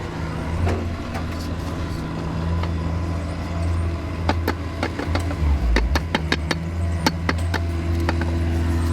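An engine running steadily with a low hum, and a run of sharp clicks and knocks about four to seven seconds in.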